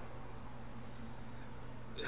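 Quiet room tone: a steady low hum with a faint hiss, and nothing else happening.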